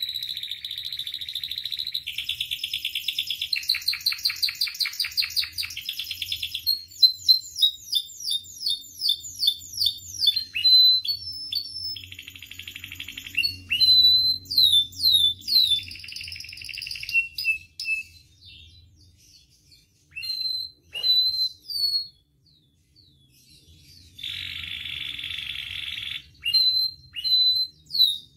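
Domestic canary singing a long, varied song. Fast buzzing rolls and trills alternate with runs of quick downward-slurred whistled notes. Past the middle the song thins to a few scattered notes for several seconds, then another roll follows.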